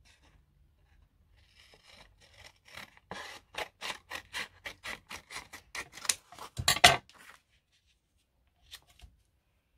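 Paper being worked by hand in a run of short, quick scraping strokes, about three a second, ending with one louder stroke about seven seconds in.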